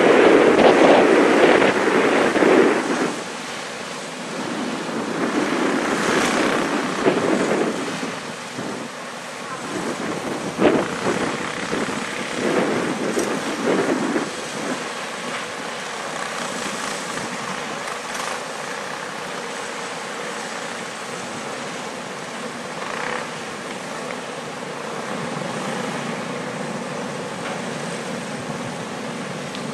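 Wind buffeting the microphone, loudest for the first three seconds, then a steadier, lower rush of wind with a few faint short sounds scattered through it.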